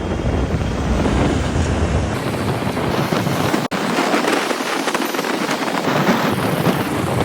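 Wind rushing and buffeting over the microphone on a moving scooter, with road and traffic noise. Loud and steady, with a split-second dropout about halfway through.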